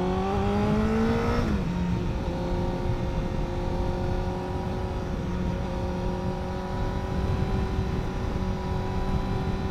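Honda CBR1000RR inline-four engine pulling and rising in pitch, dropping quickly in pitch about a second and a half in, then running at a steady pitch while cruising. A constant rush of wind noise lies underneath.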